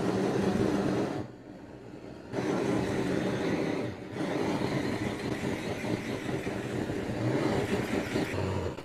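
Gas blowtorch burning steadily while singeing lamb necks. It cuts out for about a second shortly after the start, dips briefly again near four seconds, then stops near the end.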